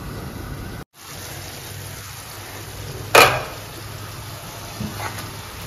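Chicken simmering and sizzling in oil and gravy in a pan: a steady sizzle that breaks off for a moment about a second in. About three seconds in there is a sharp metallic clank on the pan, then a couple of light taps.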